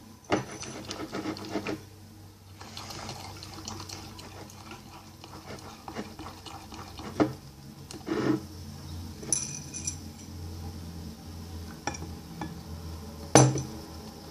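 Plastic spoon stirring a wet slime mixture of glue and borax water in a container, with a handful of sharp knocks against the side, the loudest near the end.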